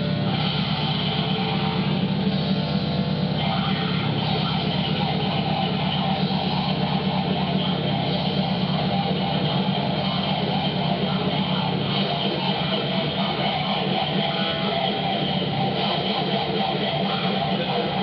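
Harsh noise music generated live in computer music software: a dense, heavily distorted wall of sound that does not let up, with a strong low hum underneath. Its texture shifts about three and a half seconds in and again around twelve seconds.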